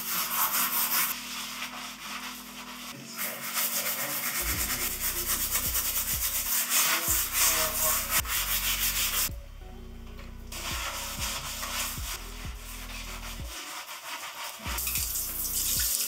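Rubber-gloved hand scrubbing the inside of a bathtub hard, in quick repeated rubbing strokes, to get rust off it. The scrubbing stops for about a second about two-thirds of the way through, then goes on.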